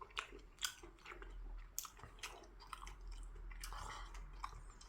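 A person chewing and eating a meal of braised kimchi stew with tofu and rice, with soft wet smacks and small mouth clicks scattered through.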